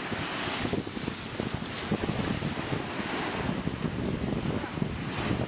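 Wind buffeting the microphone over the steady rush of sea water.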